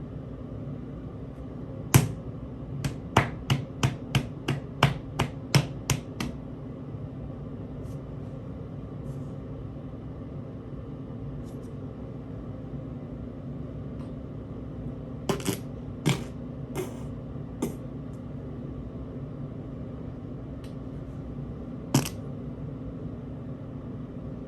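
Sharp, short clicks or knocks: one, then a quick run of about ten at roughly three a second, later a cluster of five and one more near the end, over a steady low hum.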